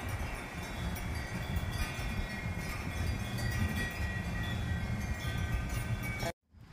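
Ringing chime-like tones holding at several pitches over a rough rumble of wind on the microphone; the sound cuts out abruptly for a moment near the end.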